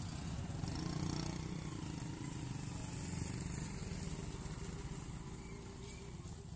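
Motorcycle and scooter engines running as two-wheelers move off and pass, over steady road-traffic rumble that eases a little toward the end.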